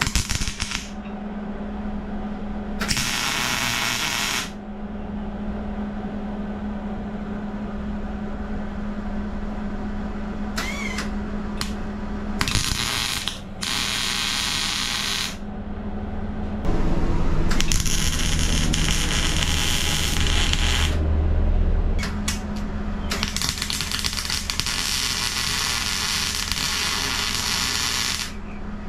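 Arc welder tack-welding steel tabs to a steel wheel rim: about five bursts of crackling arc, each one to five seconds long, the longest near the end. A steady low hum runs underneath.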